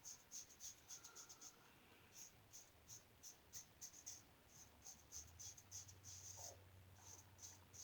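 Faint, irregular high-pitched scratchy ticks, several a second, over a low steady hum.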